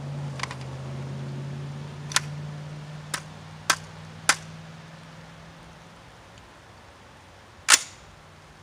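Sharp metallic clicks and clacks from an AR-15 pistol being worked by hand, with a handful over the first four and a half seconds and a louder clack near the end, while a feeding malfunction is being cleared. A steady low hum underneath fades out about halfway through.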